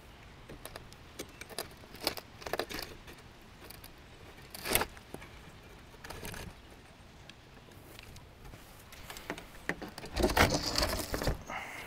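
Light metal clicks and rattles from a folding briefcase solar panel's adjustable stand legs as the panel's tilt is changed, with a sharper clack about five seconds in. Near the end comes a louder stretch of rustling and scraping handling noise.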